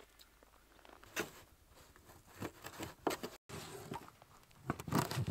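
Scattered faint crunches and knocks of thin, freshly refrozen ice being broken open at an ice-fishing hole, with a brief drop to silence a little over three seconds in and a few louder knocks near the end.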